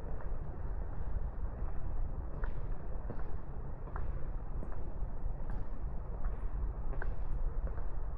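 Footsteps of a person walking at an even pace, about one step every three-quarters of a second, over a steady low rumble of outdoor background noise.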